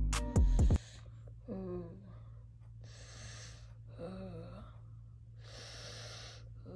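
A person making drinking noises for a hand puppet: short squeaky vocal gulps alternate with breathy gasps, about three of each, over a steady low hum. A music clip cuts off under a second in.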